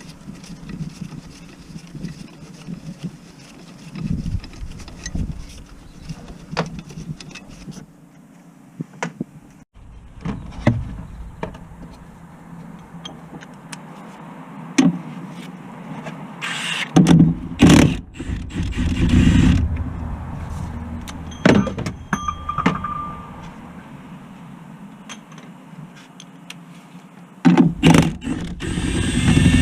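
Mechanical work noises: scattered clicks and knocks of tools and parts, with louder rattling mechanical bursts lasting a second or two about seventeen and nineteen seconds in and again near the end.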